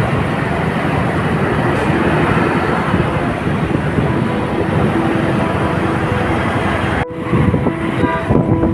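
Busy street ambience with the steady noise of traffic. About seven seconds in it cuts off abruptly and resumes, with a few faint steady tones.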